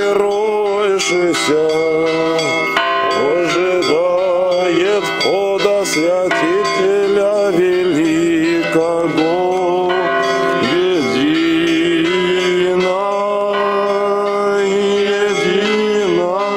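Church bells ringing, with men's voices singing a chant over them.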